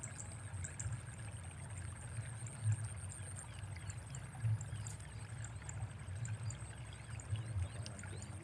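Open-air ambience: a low, uneven rumble of wind on the microphone, with a faint high, steady insect trill above it.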